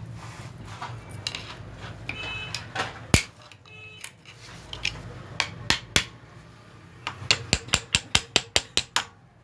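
Metal-on-metal hammer strikes driving a bearing out of a pulley: a single hard knock, a few scattered taps, then a quick run of about five strikes a second near the end, as the bearing starts to move out.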